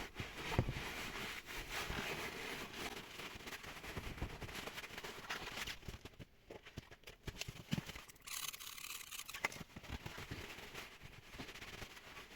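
Hand-cleaning of a car's driveshaft/CV joint parts: light rubbing and scraping with scattered small clicks, easing off for a moment around the middle and picking up again.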